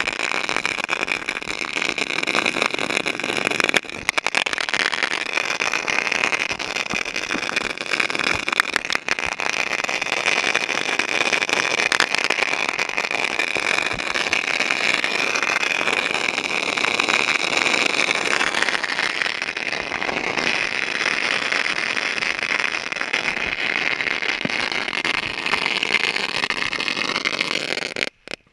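Ground fountain fireworks burning: a loud, steady hiss of spraying sparks with scattered crackles, cutting off suddenly near the end.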